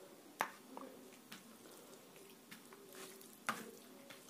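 Fingers squishing and mixing rice with fish curry on a plate, a faint wet sound, with two sharp clicks, one about half a second in and one near the end.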